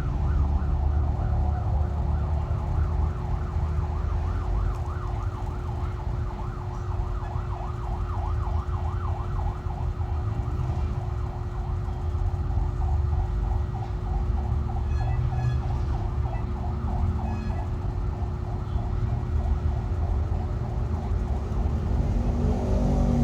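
Emergency vehicle siren in a fast yelp, its pitch sweeping up and down about four times a second, fading away about three-quarters of the way through. Under it runs a steady low rumble of traffic.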